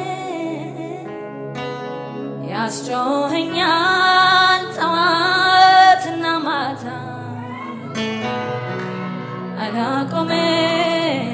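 A woman singing a gospel song into a microphone over instrumental backing, holding several long, drawn-out notes.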